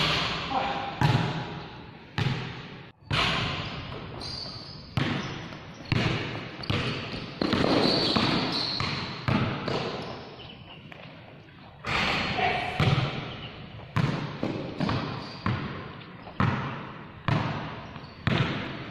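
A basketball bouncing on a concrete court floor, each bounce a sharp thud with a long echo. It comes about once a second at first, then after a short lull it quickens into steady dribbling.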